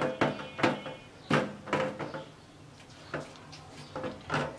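Wooden dal masher (ghutni) churning boiled masoor dal in an aluminium pot, knocking against the pot in a string of uneven knocks about every half second.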